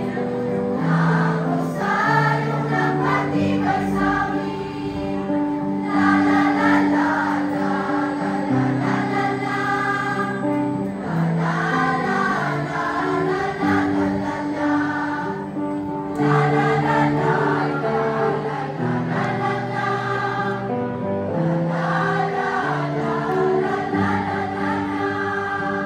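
A choir of girls and women singing a Filipino harana (serenade) together, with held low notes of accompaniment underneath.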